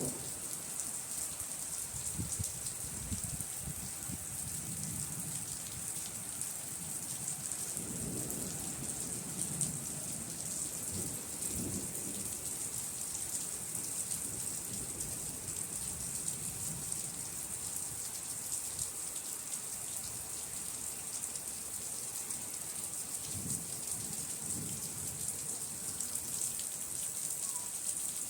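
Steady rain falling in a thunderstorm, a continuous hiss, with low rolling thunder rumbling three times: a few seconds in, around the middle of the first half, and again near the end.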